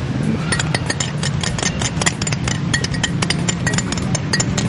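A utensil clicking rapidly and irregularly against a bowl as something is whisked by hand, over a steady low hum.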